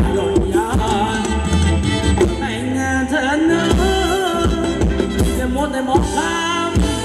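Thai ramwong dance music played live by a band through PA loudspeakers: a wavering, ornamented vocal melody over a steady drum beat.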